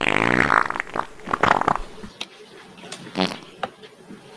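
A loud, buzzy fart noise that starts suddenly and lasts under a second, followed by a few shorter sputtering spurts.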